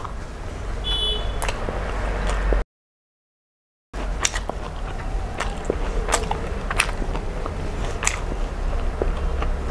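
Hand-eating sounds: fingers mixing rice on a plate and wet mouth clicks while chewing, as scattered sharp clicks over a steady low rumble. The sound cuts out completely for about a second near the middle.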